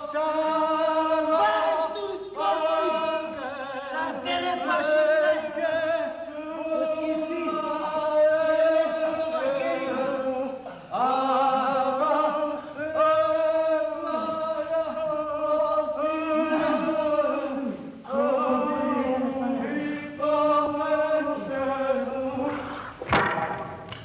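A group of voices singing a chant together without instruments, in long held phrases broken by short pauses. Just before the end comes a short, loud burst of noise.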